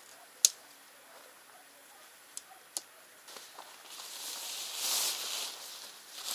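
Rainfly of a Naturehike Cloud Up 2 dome tent rustling as it is thrown over the tent and pulled into place, a hissing swish near the end. Earlier there is one sharp click about half a second in, the loudest sound, and two lighter clicks a little before the middle.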